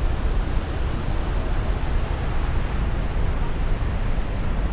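Wind buffeting the microphone: a steady rushing noise with a deep, fluttering rumble underneath.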